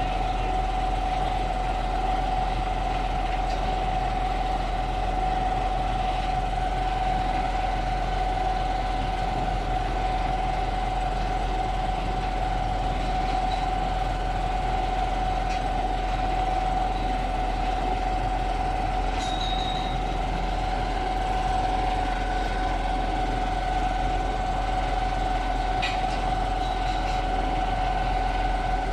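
A truck-mounted concrete boom pump's diesel engine and hydraulics run steadily, a low drone under a steady high whine. A second, higher whine joins about two-thirds of the way through, with a few faint clicks.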